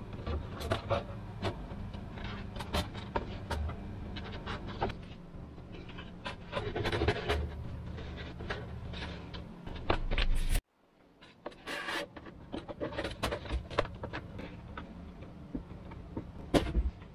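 Hands working on a depron foam model-plane fuselage: foam scraping and creaking as thin rods are pushed through it, with many small clicks and taps over a steady low hum. The sound cuts out completely for a moment a little past ten seconds in, then the handling goes on.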